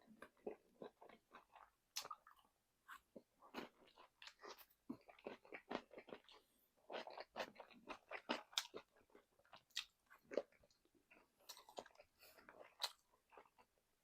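A person biting and chewing crispy cheese-coated fried chicken close to the microphone: a run of crisp crunches with short gaps between bites.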